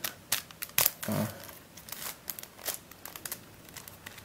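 Irregular plastic clicks and scrapes of a Dayan+MF8 pentahedron twisty puzzle being twisted by hand, the loudest in the first second. The layers are very stiff and are being forced round.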